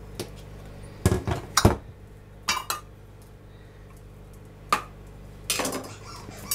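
Kitchen dishes, pans and utensils being moved around and set down on a counter: scattered clinks and knocks in small clusters, the loudest about a second and a half in.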